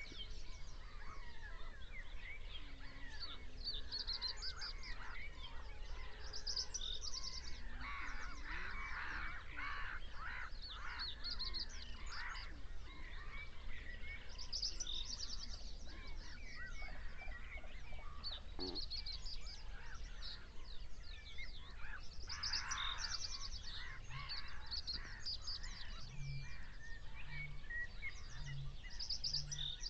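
A spring dawn chorus: many wild birds calling and singing at once, with geese honking in louder bouts about eight seconds in and again just past twenty seconds. Near the end, a low note repeats about once a second.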